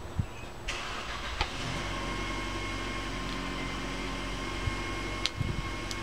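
A motor starts abruptly about a second in and runs on with a steady hum and whine. A few sharp clicks and taps sound over it.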